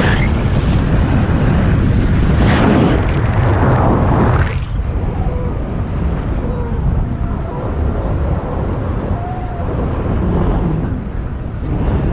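Strong wind buffeting the microphone in flight, a loud low rumble that eases a little after about four and a half seconds.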